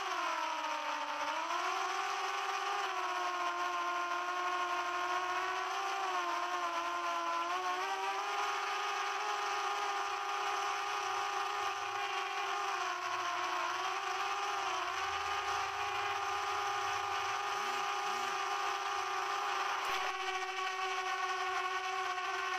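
Quadcopter drone's propellers whining steadily, several pitches sounding together, the pitch dipping and recovering briefly about a second in and again a few times later as the drone adjusts its flight.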